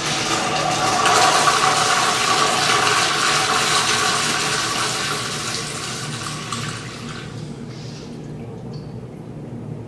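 Toilet flushing: a loud rush of water that starts at once, then fades and dies away about seven seconds in.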